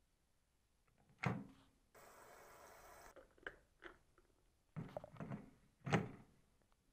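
A plastic electric kettle handled: a series of knocks and clunks, the loudest about six seconds in, with an even hiss lasting about a second from two seconds in.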